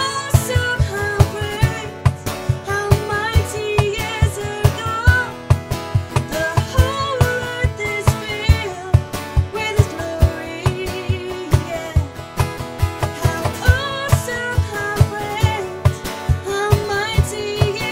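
Acoustic contemporary worship song: a woman singing over strummed acoustic guitar, with a steady low beat underneath.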